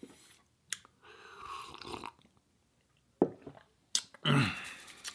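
Close-miked eating mouth sounds: chewing and a sip from a mug, with a few sharp clicks and a short vocal sound near the end.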